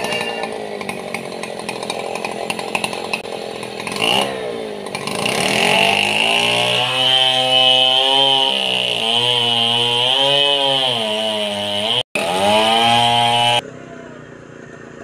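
Two-stroke chainsaw running at high revs while cutting, its engine pitch wavering up and down as the chain loads and frees in the wood. It cuts out for an instant about twelve seconds in and is quieter near the end.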